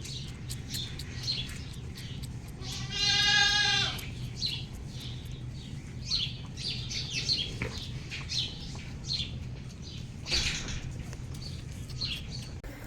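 A farm animal gives one wavering bleat lasting about a second and a half, near the start. Many short high chirps of small birds run throughout, over a steady low mechanical hum.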